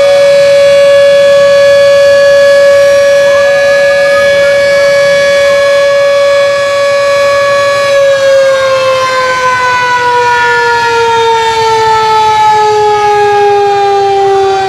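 Buka puasa siren, the signal to break the Ramadan fast, sounding one loud held tone; about eight seconds in, its pitch begins to fall slowly and keeps sliding down as it winds down.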